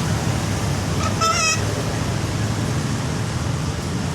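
Sulphur-crested cockatoo giving one short, harsh, squawky call about a second in, over a steady low background rumble.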